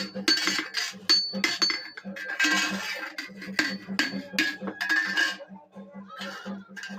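Hammer striking iron, a quick series of blows at roughly two a second, each with a short metallic ring, as scrap iron is worked into shape.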